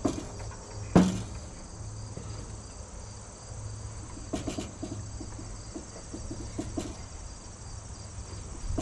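Insects chirring steadily under a low hum, with one sharp knock about a second in and a few light clicks and taps in the middle.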